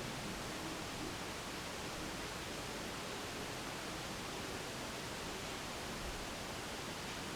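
Steady, even hiss of room tone, with no distinct knocks, creaks or ringing standing out.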